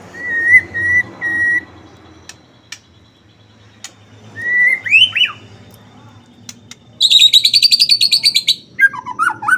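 White-rumped shama singing: a few short whistled notes, a rising whistled phrase mid-way, then a loud, very fast trill about seven seconds in, followed by quick varied whistles.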